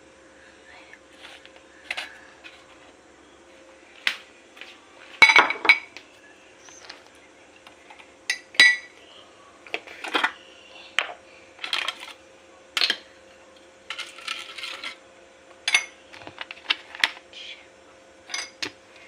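Metal kitchen utensils clinking and tapping against bowls and pans at irregular intervals, a few strikes ringing briefly. A steady faint hum runs underneath.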